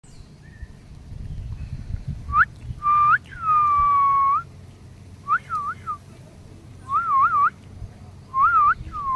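A bird giving loud, clear whistled calls. A short rising whistle leads into a long, slightly falling note, followed by three groups of quick up-and-down double whistles.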